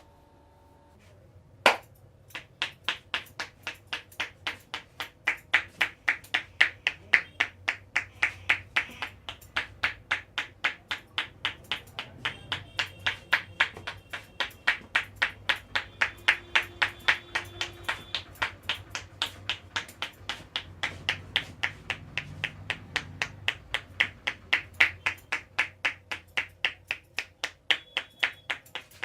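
Hands striking skin in a steady, rapid rhythm of sharp slaps, about three a second, starting with one louder crack about two seconds in.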